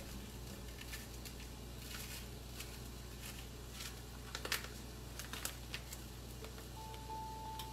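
Light scattered clicks and taps of kitchen handling, spice containers and utensils, while seasoning is put on lamb chops searing in a pan, over a steady low hum. A steady high tone comes in near the end.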